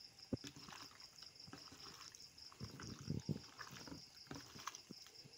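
Chicken pieces being mixed by hand or spoon into a thick yogurt, spice and ginger-garlic marinade: faint, irregular soft squelches and knocks, busiest about three seconds in. A cricket chirps faintly throughout.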